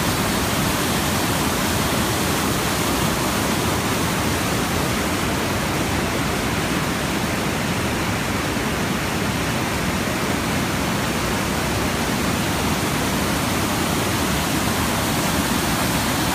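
Steady rush of river water running after rain, an even noise that does not change.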